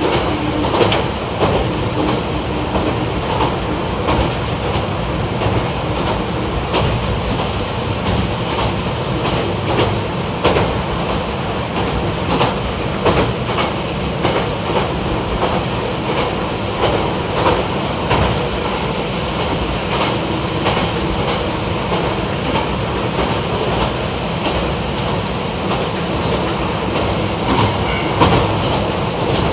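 YR-880 series light diesel railcar running between stations, heard inside the passenger cabin: a steady engine and running noise with irregular clicks from the wheels passing over rail joints.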